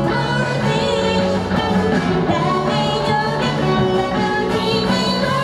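A woman singing a lively pop song live with a band through the PA: amplified vocals over electric guitar, bass and keyboard.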